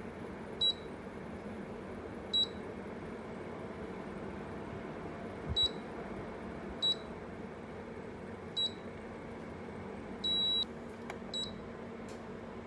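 Short electronic beeps from a Corona CWH-A1824R window air conditioner, each the unit acknowledging a remote-control button press: five single beeps a second or two apart, one longer beep about ten seconds in, then one more short beep. A steady low hum runs underneath.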